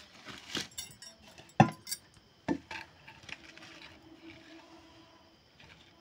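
Sticks of firewood knocked and shifted in a clay stove: a few sharp wooden knocks and clinks in the first two and a half seconds, the loudest about one and a half seconds in. After that there is only faint low sound.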